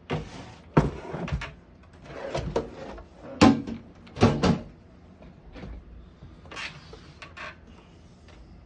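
A 1975 Smith-Corona Galaxie Twelve portable typewriter being pulled out of its carrying case: a series of separate knocks and clunks, several of them sharp, as the machine and case are handled, fewer and fainter near the end.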